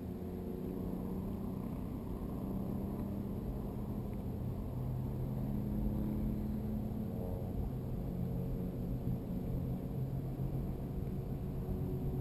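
Steady low rumble of air moving past a weather balloon's camera payload as it climbs, with a few faint hums that drift slightly in pitch.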